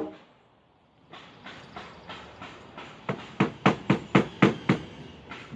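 A run of short, sharp knocks at an even pace, about three a second, starting about a second in and getting louder in the second half.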